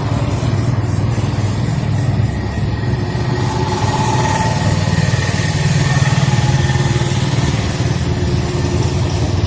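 Road vehicle engine running, a steady low rumble that grows a little louder about five seconds in.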